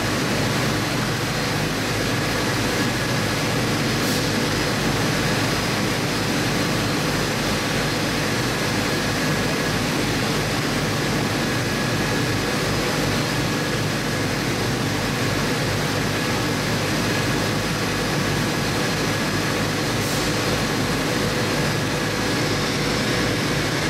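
Steady drone of factory machinery running, with several constant tones over a fast low throb.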